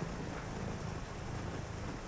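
Tabby cat purring, a steady low rumble.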